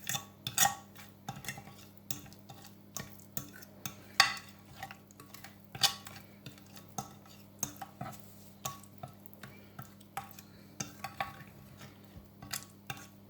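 A spoon stirring a thick spice, oil and ketchup marinade in a bowl, clinking and scraping against the sides in irregular taps.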